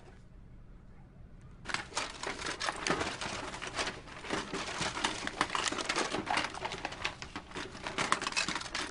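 Hands rummaging through a cluttered desk drawer: small objects clicking and rattling against each other, with paper rustling, starting after a short quiet pause.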